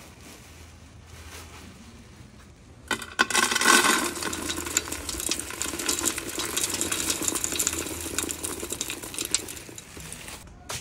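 Soy granules poured from a plastic bag into an aluminium stockpot. A dense rattling patter of many small pieces hitting the pot starts suddenly about three seconds in, with a brief ring from the pot at first, and runs for about seven seconds.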